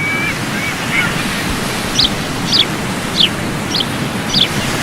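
Steady rushing noise of surf and wind, with five short high chirps coming about two a second in the second half.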